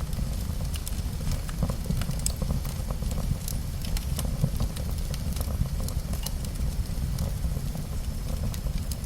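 Nature sound effect of a steady deep rumble with scattered crackles and ticks over it.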